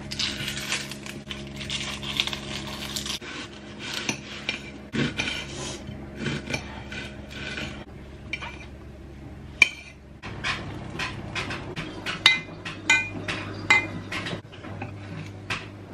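Kitchen knife cutting through an onion and button mushrooms and tapping on a ceramic plate, then a metal spoon stirring in a glass measuring jug and clinking against its side several times near the end. A steady low hum runs underneath.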